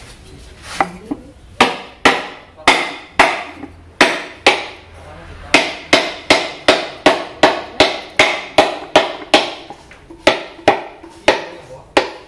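Heavy hammer striking a wooden block laid on a cylinder liner, knocking the oiled, flipped liner down into an Isuzu Panther diesel's cylinder block. A few spaced knocks come first, then from about halfway in a steady run of about three blows a second.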